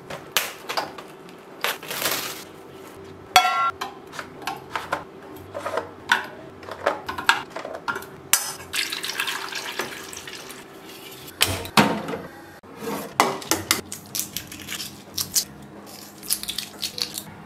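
Eggs knocking against a small stainless steel saucepan: a string of irregular clicks and knocks with one ringing metallic clink. Near the end, the shells of boiled eggs crack and crackle as they are peeled by hand. A faint steady hum runs underneath.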